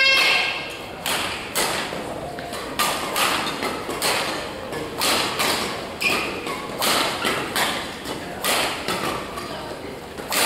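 Badminton rally: repeated sharp racket hits on a shuttlecock and thuds of footfalls on the court floor, some from neighbouring courts, echoing in a large hall.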